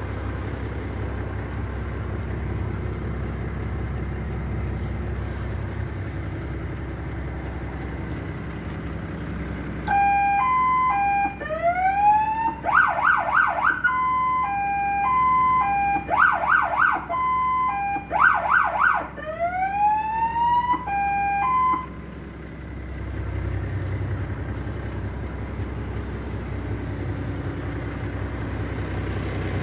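MAN LE220C fire truck's diesel engine idling, and about a third of the way in its electronic siren is switched through its modes for about twelve seconds: a two-note hi-lo tone, a rising wail, and a fast yelp, alternating several times before it cuts off and the idle carries on.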